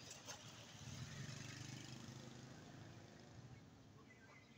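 Faint engine of a passing vehicle: a low hum that swells about a second in and fades away over the next few seconds.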